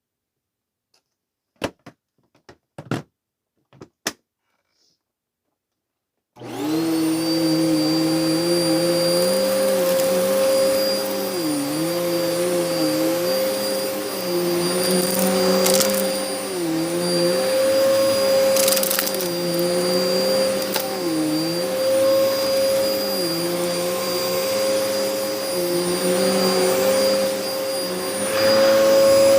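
A few sharp clicks and knocks, then about six seconds in a Hoover vacuum cleaner starts and runs steadily. Its lower hum dips in pitch every few seconds. The owner says the vacuum is clogged.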